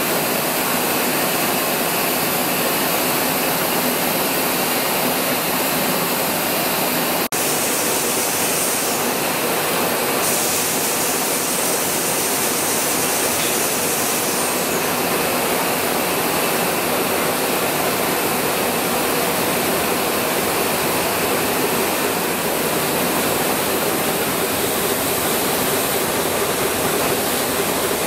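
Steady, loud mechanical din of running vintage stationary engines: a dense hiss with a low hum beneath it. It drops out for an instant about seven seconds in.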